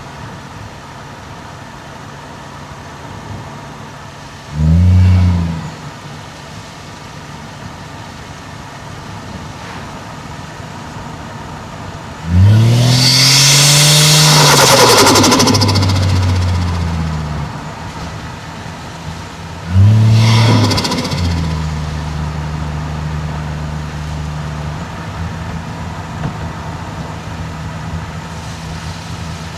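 Toyota 1JZ-GTE turbocharged straight-six engine and exhaust running at a steady low note, broken by three bursts of throttle: a short one about five seconds in, a long pull that rises in pitch with a loud turbo hiss and flutter, and a brief one about twenty seconds in.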